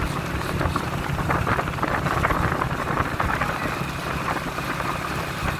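Motorcycle engine running steadily while riding along, with wind and road noise rushing over the microphone.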